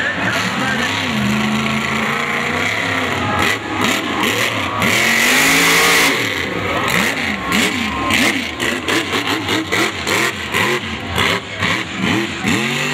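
Mud truck's engine revving hard as it runs the course, its pitch rising and falling again and again. There is a loud rush of noise about five seconds in.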